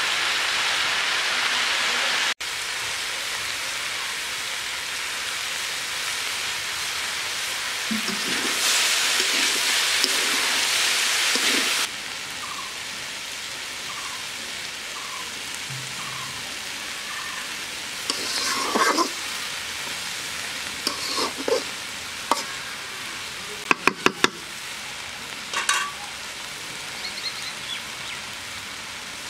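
Chopped carrot, broccoli and potato sizzling in oil in a large wok with a steady frying hiss as they are stirred. In the second half the stirring brings a run of sharp knocks and clicks against the pan, with four quick strikes in a row.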